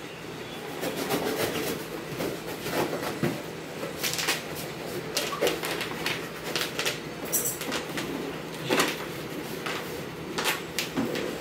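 Corrugated cardboard sheets and bubble wrap being handled, folded and pressed down by hand: irregular rustling, crackling and scraping, over a steady low hum.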